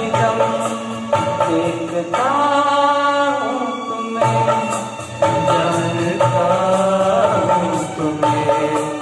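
A man singing a melody into a handheld microphone over accompanying music with a regular beat.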